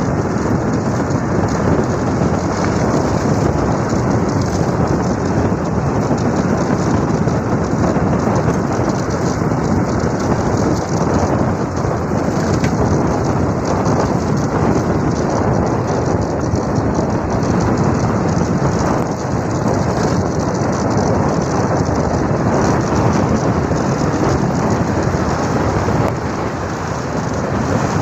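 Wind buffeting the microphone of a rider moving downhill on a two-wheeler, a loud, steady, rumbling rush with no engine note standing out.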